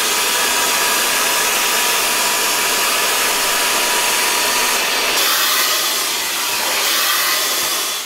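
Sylph Turbo hair dryer running steadily: a loud rush of blown air with a faint steady whine from its motor.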